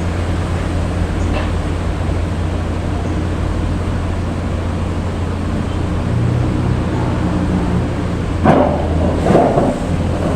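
Heavy construction machinery's engine running steadily with a low, even hum, with two brief louder noises near the end.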